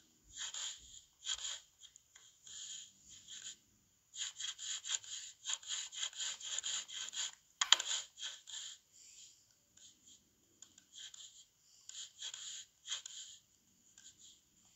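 Short scratchy taps and rubs in irregular runs from a laptop being worked to search for and switch charts, busiest about four to seven seconds in.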